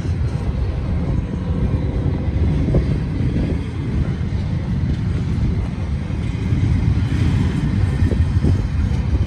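Freight train rolling past with a steady low rumble, and wind buffeting the microphone.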